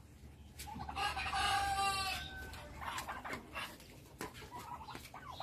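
Chickens clucking in their pens. About a second in, a rooster crows once, a single call lasting about a second and a half, and a few short clucks follow.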